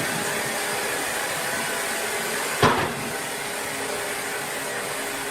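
Sawmill machinery running with a steady hiss and hum, and one sharp knock about two and a half seconds in.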